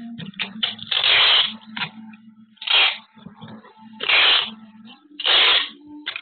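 Packing tape being pulled off a handheld tape-gun dispenser to seal a cardboard box: four loud screeching strips of about half a second each, with clicks and rustles of handling between them.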